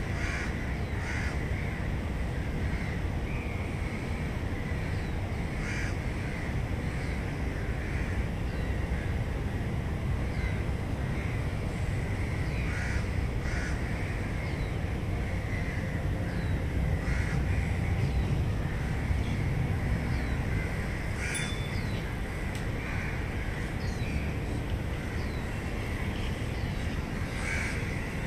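Birds calling in short repeated calls every second or two over a steady low city rumble. There is one sharp click about three quarters of the way through.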